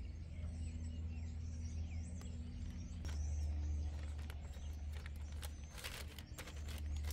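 Steady low hum, louder from about three seconds in, with faint bird chirps over it. A plastic ration heater bag crinkles a few times near the end as it is handled.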